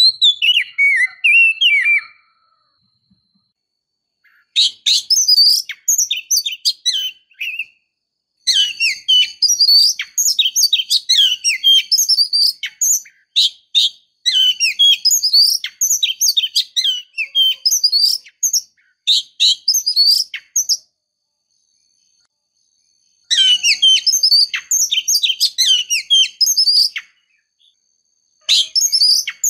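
Oriental magpie-robin (kacer) song, given as a female's calling song of the kind used to provoke males into singing. Long runs of rapid, varied chirps and whistles come in about five stretches, with clean gaps of a second or two between them.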